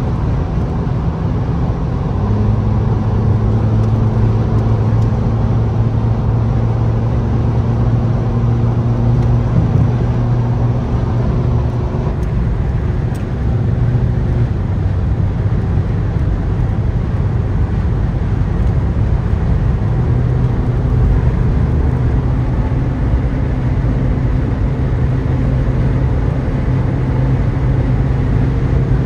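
Cabin noise of a Mercedes-Benz car cruising at very high speed, around 180 km/h: a steady low engine drone over tyre and wind rush. The engine note steps up slightly about two seconds in and then holds.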